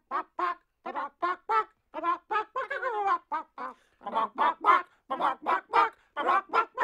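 Chicken clucking, in a run of short pitched clucks about two to three a second, louder from about four seconds in.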